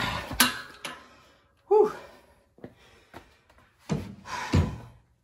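Close handling noise: several sharp knocks and clunks, a short sound falling in pitch just under two seconds in, and another cluster of knocks and rustling near the end.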